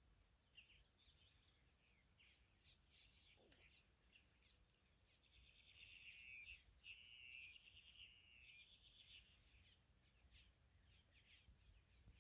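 Near silence outdoors over a marsh: faint bird calls, clearest from about six to eight seconds in, over a steady, very high insect trill.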